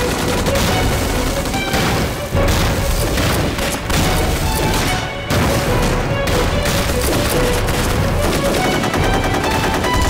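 Battle sound effects of rapid rifle and machine-gun fire with several shell explosions, the bangs coming suddenly about two, four and five seconds in, all under a dramatic film music score.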